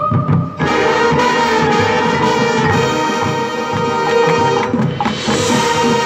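Marching band playing a field show. About half a second in, the full band comes in with held brass chords over drums, and it swells again just after a brief break near the end.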